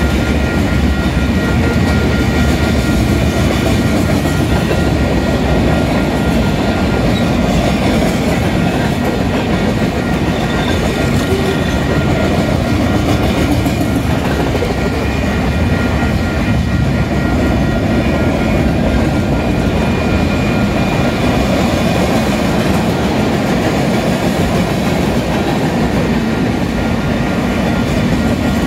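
Freight train cars rolling past at close range: a loud, steady rumble of steel wheels on the rails, with two thin, steady high tones above it.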